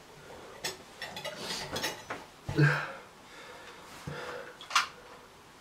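Irregular clinks and knocks of small hard objects being handled. The loudest knock, about two and a half seconds in, has a low thud, and a sharp click comes near the end.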